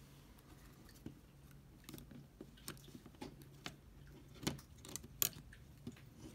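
Small clicks and scrapes of fingers handling an opened iPod's hard drive and casing, a scattered series of light ticks with two sharper clicks about four and a half and five seconds in.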